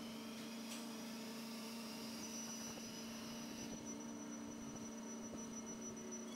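Faint, steady electrical-sounding hum, with a thin high whine joining about two seconds in.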